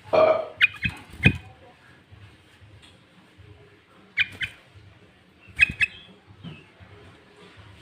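Sooty-headed bulbul giving loud, short, sharp calls: a harsh burst at the start, then clusters of two or three quick notes separated by pauses of a few seconds.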